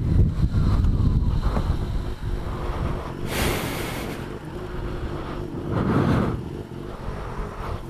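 Wind rushing over a helmet-mounted camera on a moving motorcycle, dying down as the bike slows for a red light, with the engine low underneath. About three seconds in comes a brief rush of noise.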